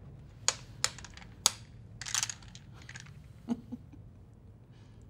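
Domino tiles clicking on a table as they are turned face down and shuffled: a few single sharp clacks, then a quick cluster of clatter about two seconds in.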